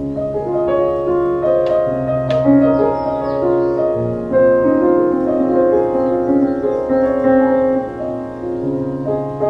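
Background piano music with held notes, and two short clicks about two seconds in.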